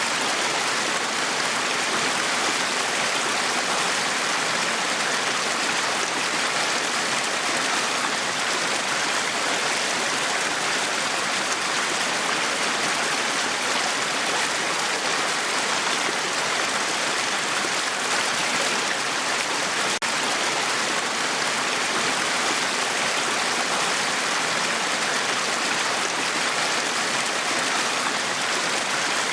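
Small brook running over stones: a steady rush and babble of water that dips only momentarily about twenty seconds in.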